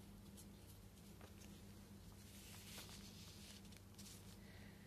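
Near silence: faint rustling and a few soft ticks of paper pages being handled in a handmade journal, over a low steady hum.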